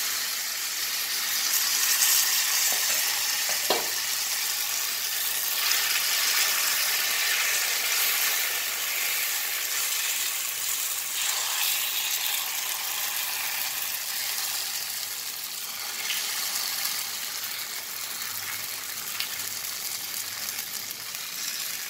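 Wheat-flour batter sizzling on a hot tawa griddle: a steady hiss that slowly weakens as the pancake cooks, with a faint tap about four seconds in.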